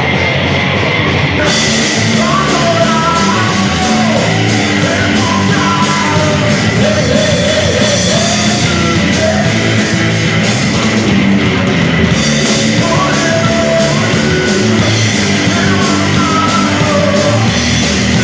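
Heavy rock music with drums, cymbals and a singing or yelling voice. The cymbals start about a second and a half in, drop out briefly about ten seconds in, then come back.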